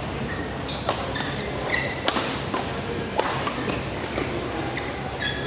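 Badminton rackets striking a shuttlecock in a doubles rally: several sharp strikes roughly a second apart, with short squeaks of shoes on the court.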